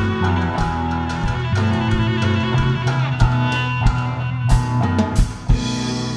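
Live rock band playing an instrumental passage: electric guitar and bass holding chords over a drum kit. About four and a half seconds in comes a run of heavy drum and cymbal hits, and the last chord is left ringing.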